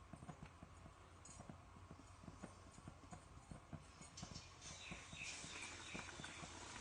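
Batter-coated eggplant fritters deep frying in hot oil: faint scattered crackling pops, with a denser sizzle building about four seconds in.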